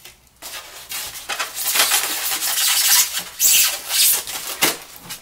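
Styrofoam packaging insert rubbing and scraping against the plastic toy RC car and its box as it is worked free, a run of uneven noisy rubs that gets louder after about a second and a half.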